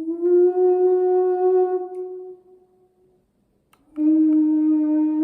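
A man humming long, steady held notes. The first fades out between two and three seconds in, and a second note starts near four seconds in, stepping slightly higher near the end.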